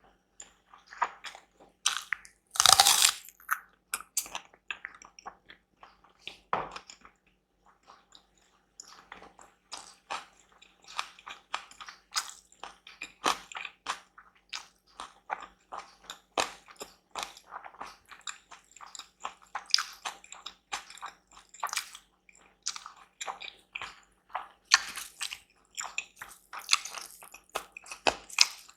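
Close-miked eating: a person biting and chewing food, with many quick, irregular crunchy and wet mouth clicks and a louder crunch about three seconds in.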